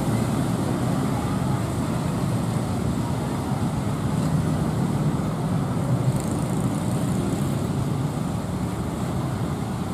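Steady road-traffic rumble from motorcycles and cars idling and pulling across a railway level crossing.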